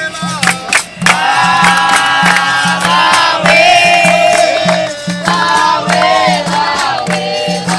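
Capoeira roda music: a group chorus singing together, coming in about a second in, over the berimbau, a steady atabaque drum beat and sharp hand-claps.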